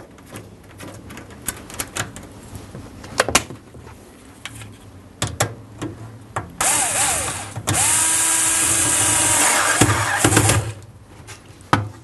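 Cordless drill-driver tightening the screw that holds a new door catch to a dishwasher's metal top rail. The motor runs briefly about halfway through, then again for about three seconds, its pitch rising and then holding steady. Before that come a few light clicks of small metal parts being handled.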